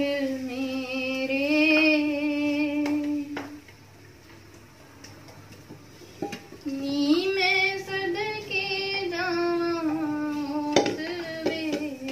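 A woman's singing voice in long, wavering held notes: one phrase, a pause from about four to seven seconds in, then another phrase. A few sharp knocks, like a spatula striking a pan, come through.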